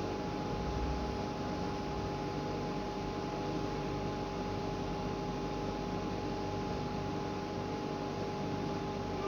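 Steady electrical or machine hum with a constant high tone and a hiss underneath, unchanging throughout.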